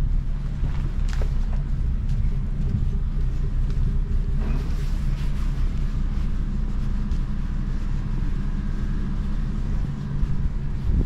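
A motor vehicle's engine running close by, a steady low rumble with a few faint knocks. It fades just after the end.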